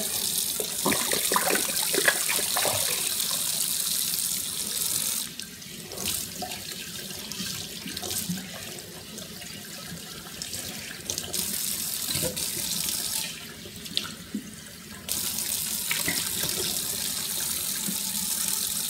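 Kitchen faucet running into a stainless steel sink. From about five seconds in until about fifteen seconds, the stream runs into a glass bottle being rinsed and the sound is quieter; then it falls straight into the sink again.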